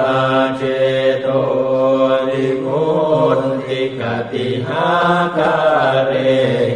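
A Buddhist monk chanting Pali verses in a single male voice, on long held notes at a nearly level pitch, with short breaks for breath between phrases.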